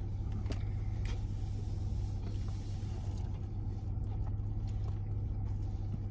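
Steady low hum of a car running at idle, heard inside the cabin, with a few faint clicks.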